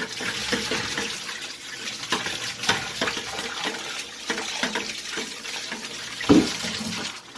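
Water running from a garden hose and splashing while rinsing lava rock, with scattered knocks and clatters and one louder thump about six seconds in.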